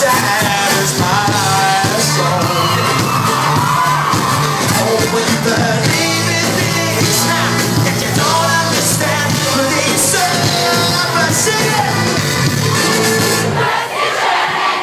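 A live pop band playing loud, with a male lead singer over keyboards, electric guitar and drums, heard from within the audience, with shouts from the crowd.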